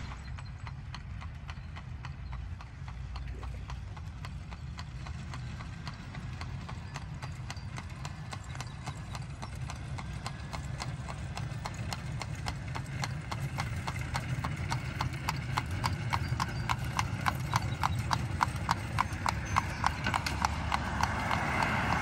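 A horse's hooves clip-clopping in a steady rhythm, growing louder as the horse approaches.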